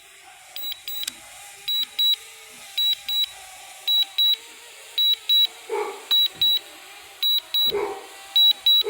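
High-pitched double beeps from a drone's low-battery warning, a beep-beep pair about once a second. A dog barks a few times in the second half.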